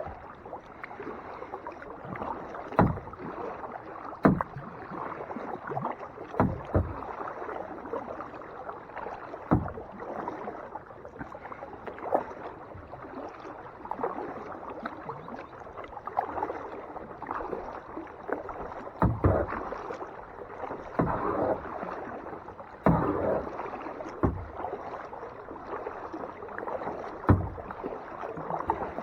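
Kayak paddle strokes splashing and dripping on lake water, with irregular low knocks against the kayak.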